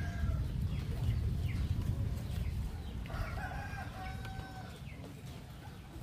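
A rooster crows once, about three seconds in, over a low rumble that slowly fades.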